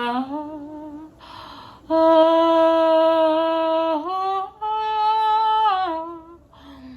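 A lone voice sings long, drawn-out notes with no accompaniment. It takes an audible breath about a second in and another near the end. Around the middle the pitch steps up, then slides back down.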